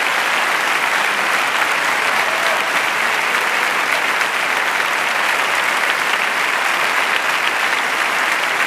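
A large audience applauding, dense steady clapping that neither builds nor fades.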